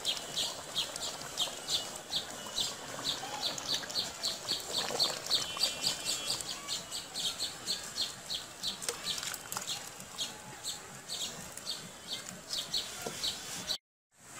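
A small bird chirping over and over, about three short high chirps a second, with a brief cut to silence near the end.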